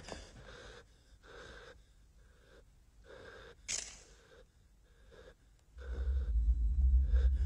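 A man breathing hard in quick, ragged breaths, with one sharp gasp around the middle. A deep, low music drone swells in near the end.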